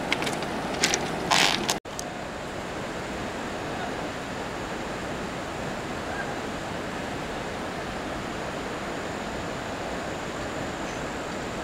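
A few footsteps crunching on railway track ballast. After a brief dropout about two seconds in, the steady rushing of the Dudhsagar waterfall, even and unbroken.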